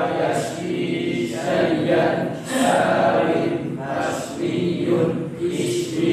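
A group of voices chanting Arabic verb-conjugation paradigms (tasrif) in unison, in short repeated phrases about every second and a half: rote recitation of Arabic morphology tables from memory.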